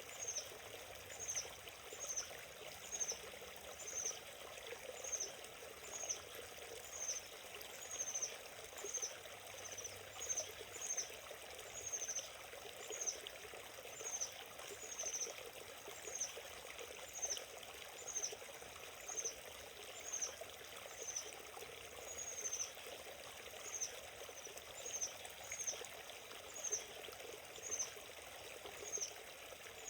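Small forest stream flowing steadily, a continuous rush of water. Over it, a high, short chirp repeats evenly about twice a second.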